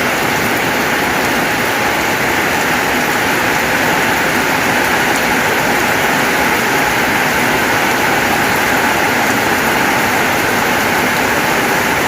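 Heavy rain falling steadily, an even hiss of downpour with no let-up.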